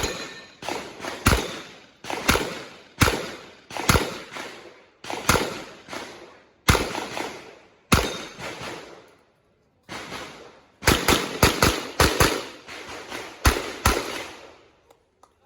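Smith & Wesson 929 9mm revolver firing a stage, a long string of shots each ringing with echo, about half a second to a second apart. A short pause past the middle, then a quicker run of shots.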